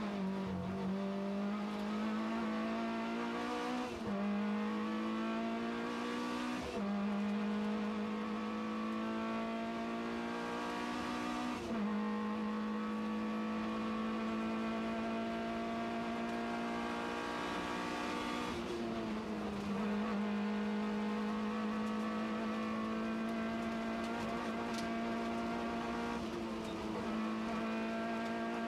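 Talbot Samba rally car's engine heard from inside the cabin, pulled hard through the gears: the note climbs steadily and drops at each gear change, about four, seven and twelve seconds in, then holds high before two more drops near the end.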